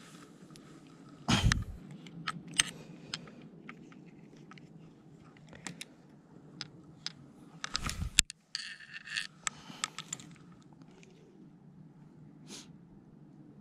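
Handling noise from a spinning rod and reel: scattered clicks, light rattling and scraping, with two loud thuds, one about a second in and one near eight seconds.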